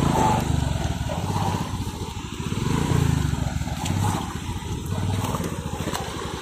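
Motorcycle engine running with a quick, even firing beat, its revs swelling and easing repeatedly as the bike labours in sandy mud.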